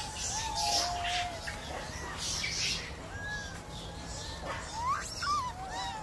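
Macaques in a troop giving a scattered series of short, clear coo calls that rise and fall in pitch, one sweeping sharply upward about five seconds in, over faint scratchy noise.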